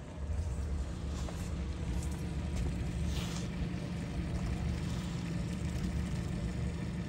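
Boat engine idling with a steady low hum, with a faint splash of water about three seconds in.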